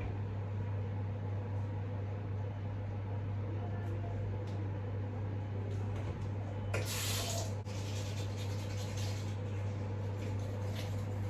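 Brief rush of water from a kitchen tap about seven seconds in, over a steady low hum.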